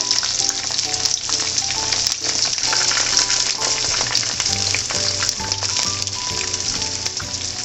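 Starch-coated okra pieces deep-frying in hot oil (about 180 °C) in a frying pan: a steady, dense sizzle with fine crackling as the pieces are turned. Soft background music with short melodic notes plays underneath.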